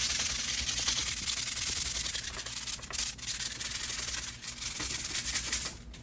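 Sandpaper rubbed by hand along a steel garage door torsion spring shaft to smooth rough spots, a continuous gritty scratching that stops just before the end.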